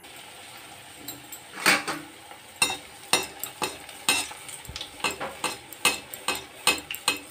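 Battered paneer pakoras deep-frying in hot oil in a metal kadhai, sizzling steadily. From about a second and a half in, a perforated metal slotted spoon clinks and scrapes against the pan about twice a second as the pakoras are stirred and turned.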